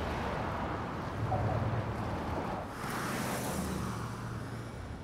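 City traffic ambience: a steady low rumble of engines, with a hiss that swells and fades about three seconds in, like a vehicle passing.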